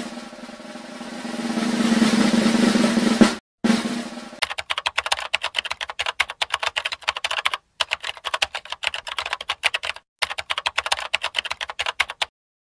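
Rapid typing clicks, a fast run of keystrokes in three stretches with brief pauses, stopping shortly before the end. Before it, a swelling sound effect with a low hum builds for about three seconds and cuts off, followed by a short hit that fades away.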